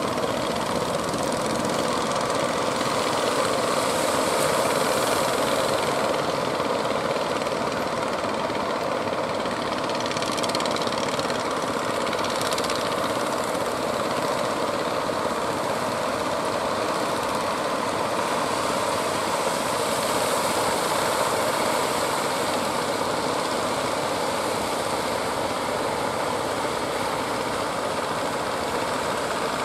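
Boat engine running steadily at an even pitch.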